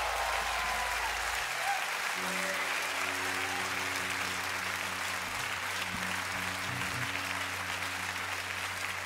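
Concert audience applauding a song, dense steady clapping. The band's low closing sound stops about a second and a half in. A low held musical chord comes in under the applause about two seconds in.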